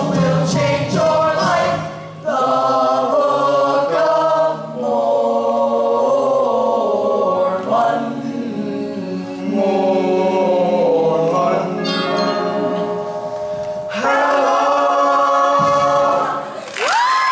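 A group of boys singing a show tune together with musical accompaniment, moving through long held notes and chords.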